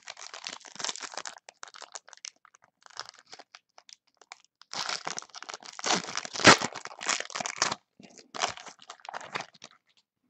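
Foil trading-card pack wrapper crinkling and tearing as it is pulled open by hand, in several bursts of crackling, the longest one in the middle with a single sharp crack.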